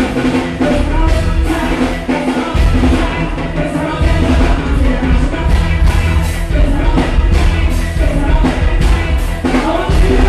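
Live soca music played loud through a PA, with a heavy bass line, a driving drum beat and a singer's voice over the band.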